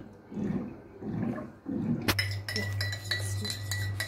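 Warm water running from a water dispenser's hot tap into a glass, with a low glugging every half second or so. About halfway it cuts to a teaspoon stirring in a tall glass, clinking many times against the sides over a low steady hum.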